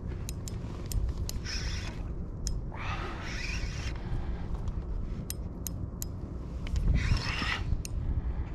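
Spinning reel being cranked, its gears clicking with scattered sharp ticks and three short raspy stretches, over a steady low rumble.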